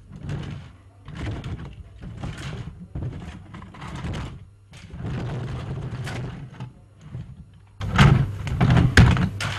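Toys and cardboard being rummaged through by hand in a cardboard box: irregular rustling, scraping and clattering, with a burst of louder knocks near the end.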